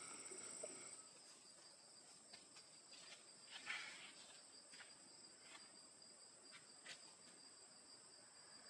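Faint insects chirring, two steady high-pitched tones, with a few soft clicks.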